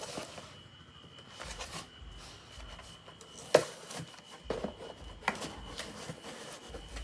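Product packaging being handled and unwrapped by hand: scattered rustling and rubbing with a few sharp clicks, the loudest about halfway through.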